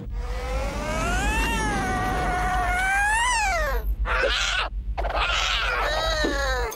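Cartoon cat yowling: one long wavering yowl that rises, holds and then falls away, two short harsh hissing bursts, then a shorter falling yowl, over a low steady rumble.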